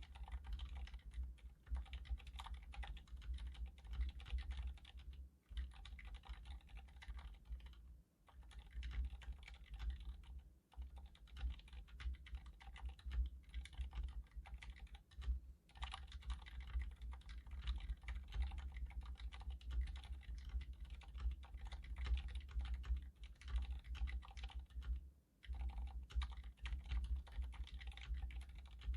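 Continuous fast typing on an iQUNIX F96 mechanical keyboard with silent linear red switches. The keystrokes are muffled, soft clacks with a low thock under each. The typing pauses briefly several times.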